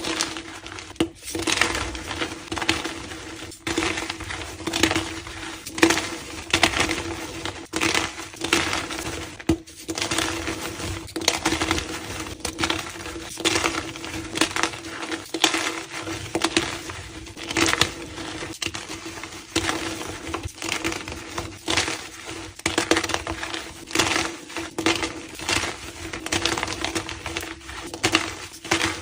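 Blocks of reformed gym chalk being crushed and crumbled: a steady run of separate crunches, roughly one or two a second.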